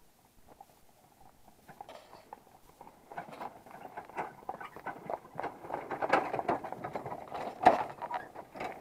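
Hooves of a pair of horses clopping on a dirt road, with the wagon they pull rattling behind. The sound grows louder as the team comes up, is loudest as it passes, and eases off near the end.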